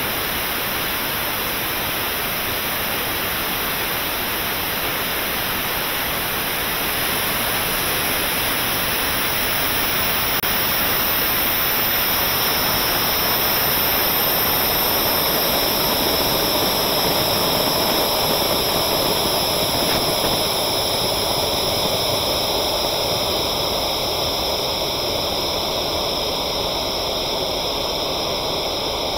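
Steady rushing hiss of air flowing over the Kairos II sounding rocket's airframe as it coasts upward after motor burnout, slowing from about Mach 1, heard through the onboard camera.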